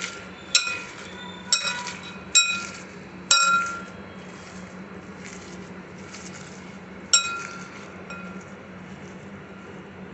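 A glass mixing bowl clinking and ringing as the hand mixing onions and spices in it knocks against its side, with five sharp clinks in the first three and a half seconds and one more about seven seconds in. A steady low hum underneath.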